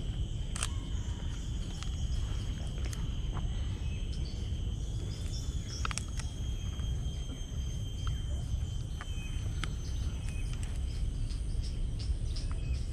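Outdoor wetland ambience: a steady high-pitched insect drone over a constant low rumble, with a few short sharp clicks scattered through it.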